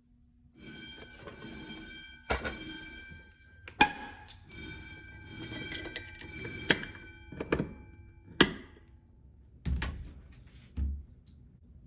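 Fire alarm bell ringing unevenly rather than with a steady ring: a metallic tone that starts about half a second in, broken by about seven sharp knocks at irregular intervals, the last two with heavier thuds.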